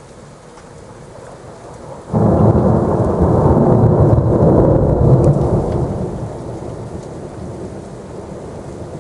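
Thunderstorm: steady rain with a close thunderclap that cracks in suddenly about two seconds in, rumbles loudly for a few seconds, then slowly dies away under the rain.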